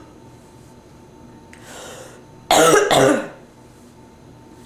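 A woman with bronchitis coughing: a breath in, then a loud, harsh double cough about two and a half seconds in.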